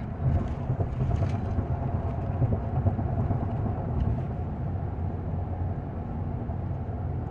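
Steady low rumble of a moving vehicle heard from inside the cabin, with a faint steady hum over it.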